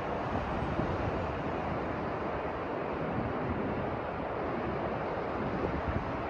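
Sea surf washing onto a beach in a steady rush, with wind buffeting the microphone.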